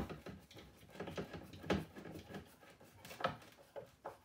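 Phillips screwdriver turned by hand, driving small screws into the cabinet base: irregular clicking and scraping of the tip in the screw heads, with a few sharper knocks about halfway and near the end.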